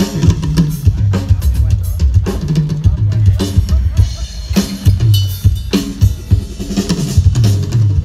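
Drum kit played loud through a large outdoor line-array PA system for a sound test: heavy kick drum and snare strokes in a busy pattern, with several cymbal crashes.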